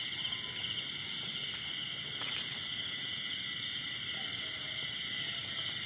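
Night chorus of crickets and other insects: a steady, high-pitched trilling that runs without a break.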